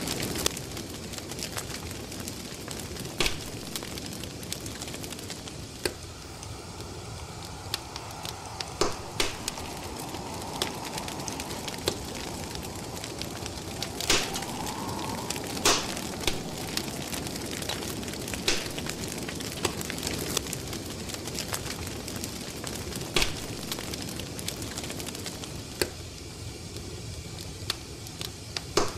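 Wood fire crackling: a steady soft hiss with irregular sharp pops and snaps, a few of them standing out well above the rest. A faint wavering tone sounds in the middle, rising slightly about halfway through.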